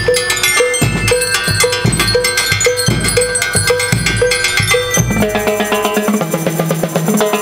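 School rhythmic band (banda rítmica) playing: bass drum and snare keep a steady march beat about twice a second, with cowbell and metal bell lyres ringing above. About five seconds in the low drums drop out, and the bell lyres carry a ringing melody over lighter percussion.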